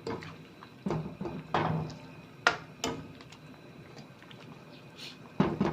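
A few short knocks and clatters of kitchenware, spaced irregularly, with a louder cluster near the end.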